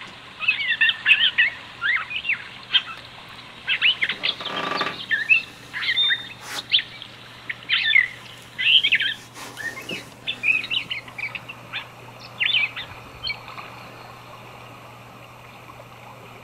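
Recorded dawn birdsong played from a nature-sounds cassette on a portable tape player: many short chirps and whistles, thinning out after about thirteen seconds, over a low steady hum.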